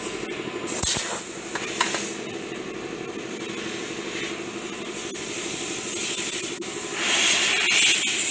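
Airbrush hissing as air is blown through it: two brief puffs in the first two seconds, then a longer, louder spray of air building in the last few seconds, over a steady low hum.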